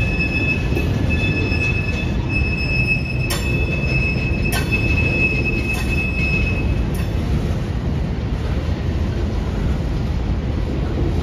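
Train rolling by with its wheels squealing in high, steady tones over a continuous low rumble. The squeal fades out after about seven seconds, and there are two sharp clanks about three and four and a half seconds in.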